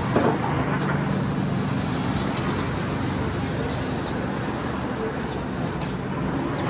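Steady street traffic noise, with a continuous low hum.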